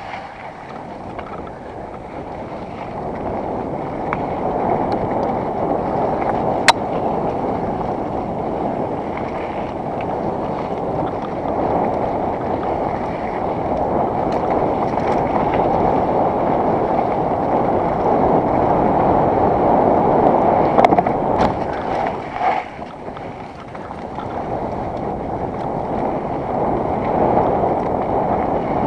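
Mountain bike riding down a dirt singletrack: steady rush of wind on a helmet-mounted camera's microphone mixed with knobby tyres rolling over dirt and stones, with a few sharp clicks and knocks from the bike, notably about a third of the way in and a cluster about two-thirds through.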